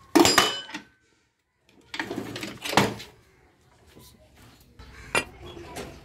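Steel pieces clanking against a steel bench vise: a ringing metal clang at the start, a rattle with a heavy knock about two to three seconds in, and a lighter knock near the end.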